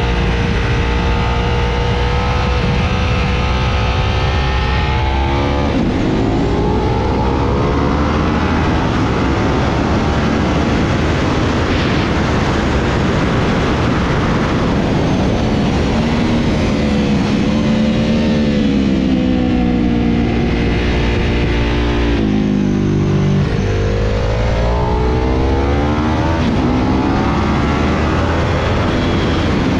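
Sport motorcycle engine heard from the rider's seat at track speed, its pitch climbing under throttle and dropping at gear changes twice, about six seconds in and again near twenty-two seconds. Heavy wind rush covers the engine for a few seconds at top speed on the straight, about halfway through.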